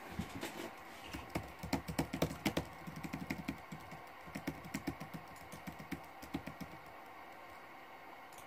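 Typing on a computer keyboard: quick, irregular keystrokes that stop about a second before the end.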